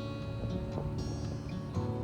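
Instrumental background music with guitar; the chord changes about a second in.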